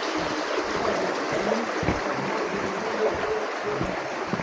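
Steady rush of running water, like a stream or runoff flowing nearby, with a few soft low thumps.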